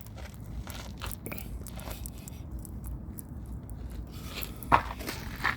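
Rubber tire plug being forced into a puncture in the tread with a plug insertion tool: scattered crunching and scraping, with one sharper, louder crunch near the end.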